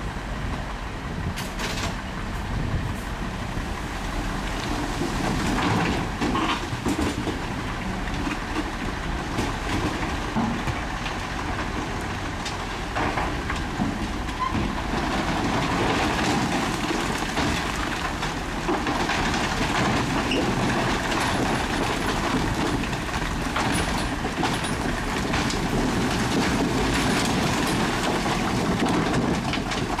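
Komatsu crawler bulldozer at work: diesel engine running under load, steel tracks clanking and rock and soil grinding under the blade, getting louder about halfway through.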